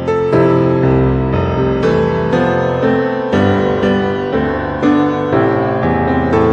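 Background music: a slow piano piece, with notes and chords struck about twice a second and left to ring.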